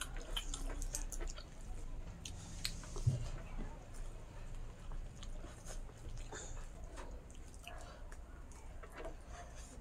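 Eating sounds: chewing and small mouth clicks and smacks as rice, pork and greens are eaten by hand, with fingers working through rice on a wooden platter. A brief dull knock about three seconds in.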